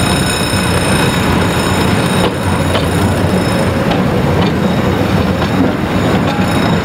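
Diesel locomotive passing close by at low speed, its engine giving a steady low rumble, with the wheels clicking now and then over the rails.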